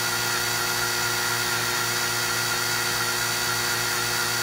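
Cordless drill turning slowly, about 350–400 RPM, as a solid carbide bit cuts into a hardened grade 8 steel bolt: a steady whine from the drill's motor and gearbox.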